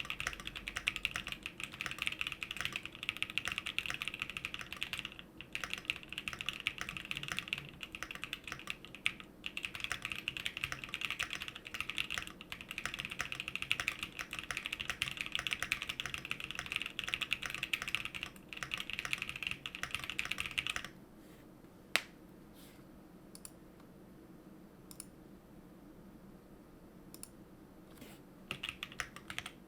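Fast, continuous typing on a custom 65% mechanical keyboard with Gazzew Boba LT switches on an aluminum plate, with all foams and a PE foam mod. About two-thirds of the way through, the typing stops, leaving only a few scattered key presses, one sharper click among them. Quick typing starts again just before the end.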